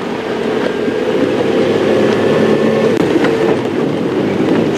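Safari game-drive vehicle driving along a rough dirt track: the engine running under a steady rattling drone from the vehicle over the bumps.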